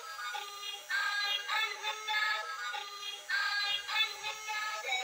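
Electronic melody in synthesized tones, playing continuously and thin with no bass, the kind of tune a light-up battery toy train plays from its built-in speaker.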